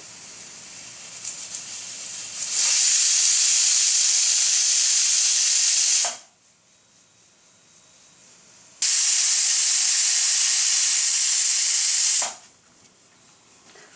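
Hawkins pressure cooker whistling twice: the weighted valve lifts and vents steam in a loud hiss of about three and a half seconds each time, cutting off sharply, after a quieter hiss that builds for the first couple of seconds. Each whistle is the pressure release that is counted to time the cooking.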